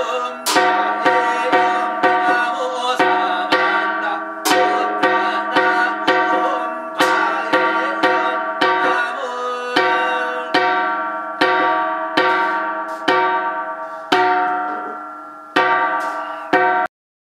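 Large brass bara cymbals of the Buddhist bara-chum dance being clashed about twice a second, each clash ringing on with a shimmering metallic tone. Near the end the ringing is left to fade for a moment, then a few more clashes come before the sound cuts off suddenly.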